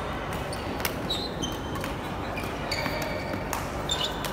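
Badminton doubles rally: a few sharp racket hits on the shuttlecock, with short high squeaks of court shoes on the floor, over steady background noise.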